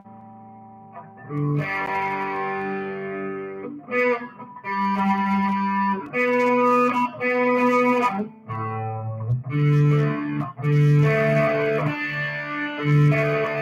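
Live band playing: distorted electric guitar through effects plays loud sustained chords that change about every second or so, after a faint held chord fades out in the first second and a half.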